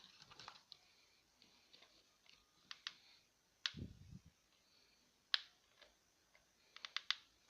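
Scattered light clicks and taps from handling a silicone glue gun and cardboard pieces, with a quick run of clicks near the end and one soft low thump about four seconds in.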